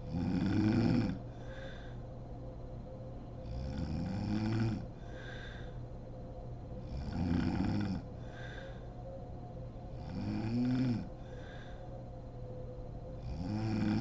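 A woman snoring in deep sleep: five snores, about one every three and a half seconds, each about a second long and rising then falling in pitch, each followed by a softer, shorter breath.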